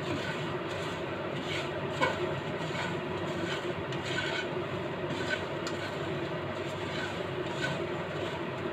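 Dried chilies rustling and a slotted spatula scraping across a nonstick frying pan as the chilies are stirred while dry-roasting, in repeated strokes over a steady hiss, with a sharper knock about two seconds in.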